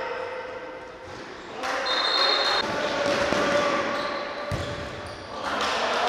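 Indoor handball game sounds echoing in a large sports hall: the ball bouncing on the court and players calling out. A referee's whistle sounds for about a second, about two seconds in and again near the end.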